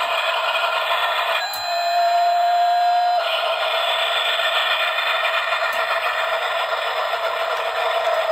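The small built-in speaker of a Bradford Exchange Flying Scotsman cuckoo clock plays its recorded steam-train whistle, a steady, thin, tinny sound. About one and a half seconds in, it changes for under two seconds to a single held tone, then goes back. The whistle sound has been restored to working.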